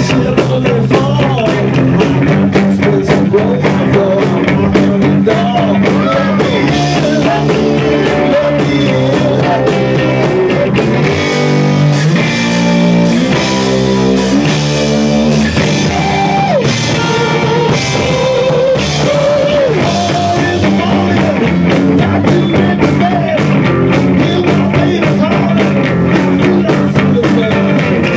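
Live rock band playing loudly: electric guitar and drum kit with a singer's vocals.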